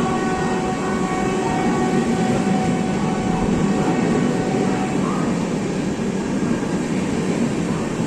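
WAP7 electric locomotive's horn holding one long note over the rumble of the passing train. The horn cuts off about five seconds in, leaving the steady running noise of the coaches on the track.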